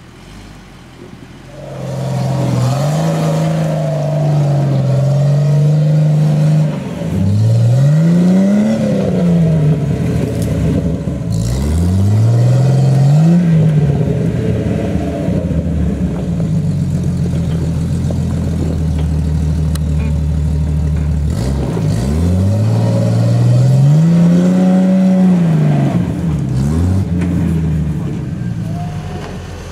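Jeep engine working up a steep rocky slope off-road, revved up and back down several times as it crawls over the rocks.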